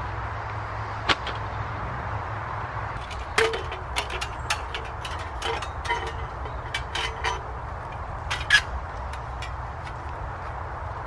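Bushbox XL folding metal stove being unfolded and assembled: a string of sharp metallic clicks and short ringing clinks as its panels and grate plate knock together, the loudest about a second in and near eight and a half seconds, over a steady low background rumble.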